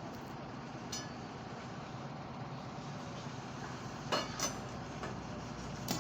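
Steady machinery noise with sharp metal-on-metal clinks: one about a second in, two close together a little after four seconds, and one near the end.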